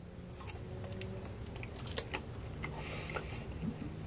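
A person biting into and chewing a mini beef stick, with scattered faint clicks of the mouth and jaw.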